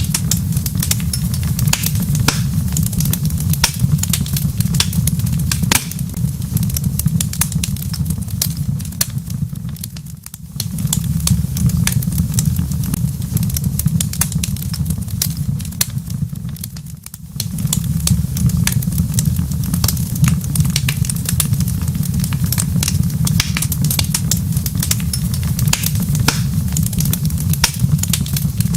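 Wood fire crackling in a fireplace: a dense scatter of sharp pops and snaps over a steady low rumble. The rumble fades out briefly twice.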